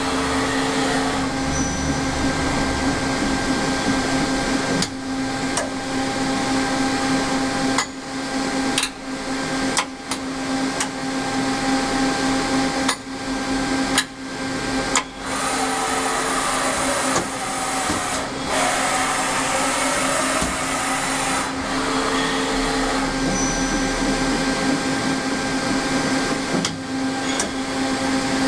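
Daewoo Puma 12L CNC lathe running: a steady machine hum with a strong low tone, broken by several short knocks as the tool turret indexes, and a wavering whine that rises and falls partway through.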